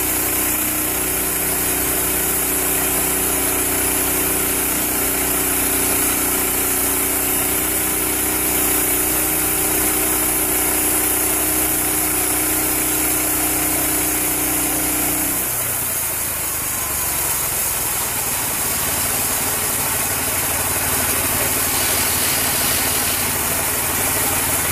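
Engine of a homemade bandsaw sawmill running steadily as it mills sally wattle. Its steady tone changes about two-thirds of the way through while the machine keeps running.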